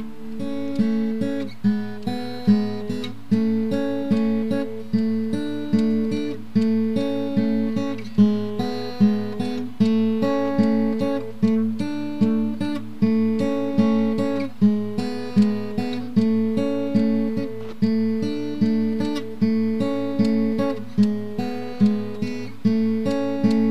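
Background music: acoustic guitar plucking a repeating pattern of notes with a steady beat.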